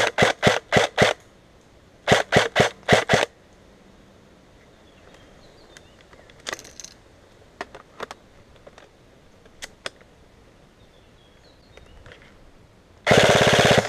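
Airsoft rifle firing: two quick strings of five or six shots in the first three seconds, then a short rapid full-auto burst near the end. A few faint single clicks fall in between.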